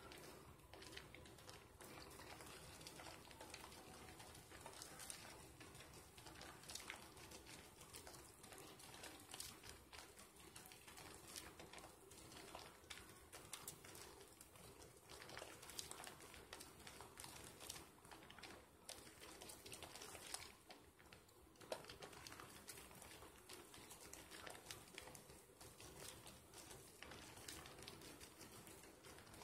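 Faint wet squishing and crackling of thick soap lather as soapy hands rub and squeeze a soap sliver.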